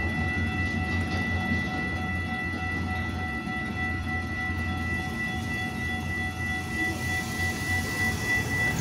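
Grade-crossing warning bell ringing steadily over the low rumble of a Metra commuter train, with the rumble easing off about halfway through.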